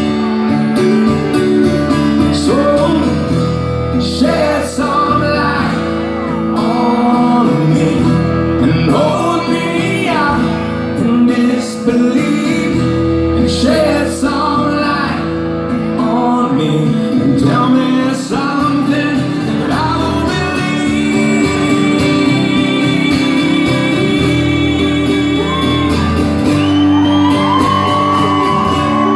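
Live rock song: a male singer with guitar accompaniment, the sound filling a large hall.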